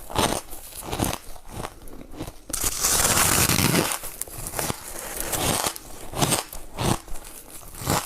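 Ice being bitten and crunched close to the microphone: a run of sharp crunches, with a longer, louder grinding crunch lasting about a second and a half near the middle.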